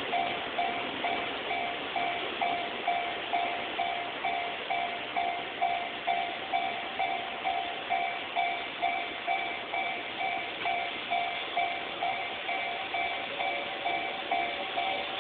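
Japanese level crossing warning bell ringing, an even clanging of about two and a half strikes a second. A second, slightly lower-pitched tone joins near the end.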